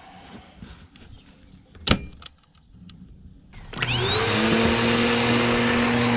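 A vacuum cleaner motor switched on most of the way through, whining up in pitch and settling into a steady loud run. Before it come a few quiet handling sounds and a single sharp knock.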